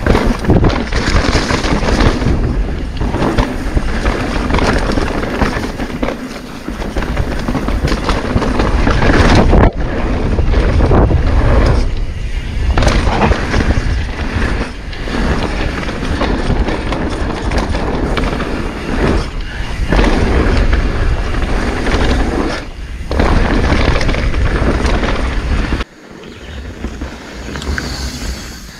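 Wind rushing over the camera microphone and tyres rolling over dirt and rock as a mountain bike rides down a forest trail; the noise drops off suddenly near the end.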